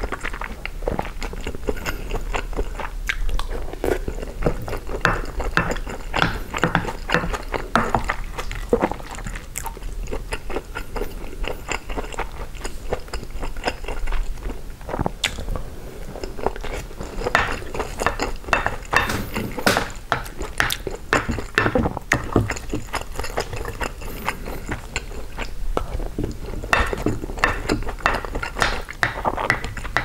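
Close-miked chewing and mouth sounds of someone eating gumbo with rice: a continuous run of soft clicks and smacks, busier in stretches.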